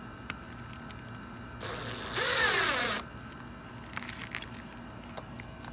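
Power drill driving a screw into a board: one run of just over a second in the middle, the motor's pitch rising and then dropping away as it stops.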